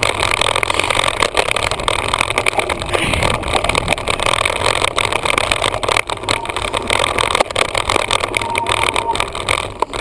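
Wind rushing and buffeting over the microphone of a camera on a moving bicycle, with frequent small knocks and rattles from the bike mount.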